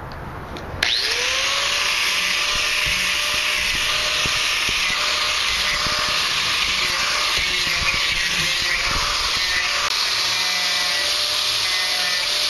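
Angle grinder with a sanding disc switched on about a second in, spinning up with a rising whine, then running steadily as it sands rough chainsaw-carved cedar.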